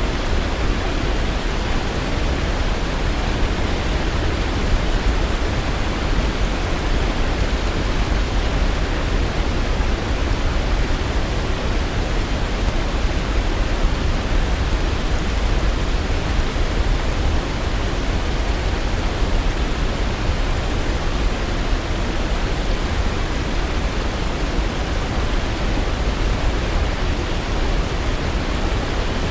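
Waterfall rushing in an even, steady roar of water noise, heaviest in the low end, with no birdsong or other events standing out.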